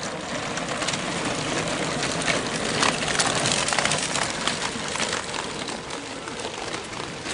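Mountain bikes riding past close by on gravel: knobby tyres crunching and rattling over the stones, with scattered sharp clicks. The sound swells as the riders come nearest, a few seconds in, then eases off.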